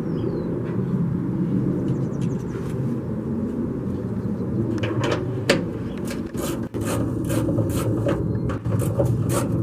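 A socket wrench clicking and clinking on the 10 mm bolts of a Jeep hood latch, in short irregular strokes from about halfway on, over a steady low hum.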